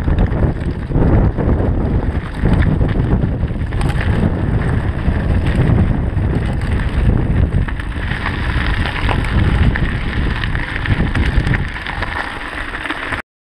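Mountain bike riding over a loose gravel track: tyres crunching on stones and the bike rattling over bumps, under heavy wind rumble on the camera microphone. It cuts off abruptly near the end.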